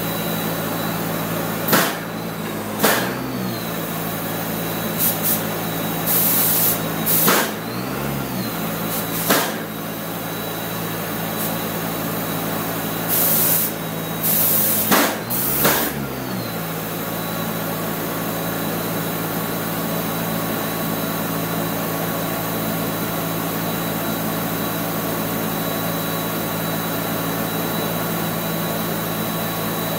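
Paint spray gun firing short blasts of hissing spray, one about six seconds in and a longer one about thirteen seconds in, with a few sharp clicks of the trigger or gun, over a steady machine hum from the spray equipment or booth ventilation.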